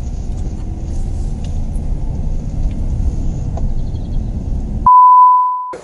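Low steady rumble of road and engine noise inside a moving car's cabin, with a few faint ticks. Near the end the rumble cuts out and a loud steady 1 kHz bleep tone holds for about a second.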